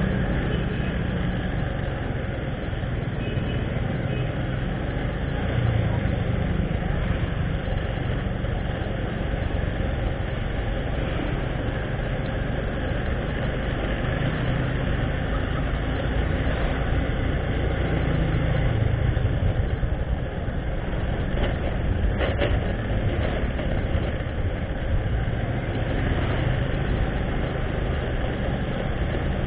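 Steady low engine drone and wind rumble from a motorcycle being ridden along a street, mixed with the engines of other motorbikes in the traffic around it.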